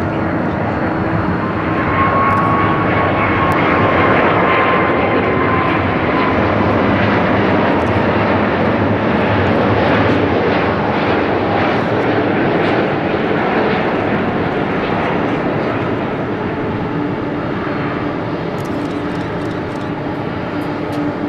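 Boeing 777-300's twin jet engines on final approach passing close by: a broad rushing roar with a whine that falls in pitch as the plane goes past, loudest a few seconds in and then slowly fading. Near the end the main wheels touch down on the runway.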